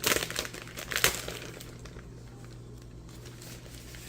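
Crinkling and rustling of the tattoo transfer-paper pack being handled: sharp crinkles in the first second or so, then only soft rustles.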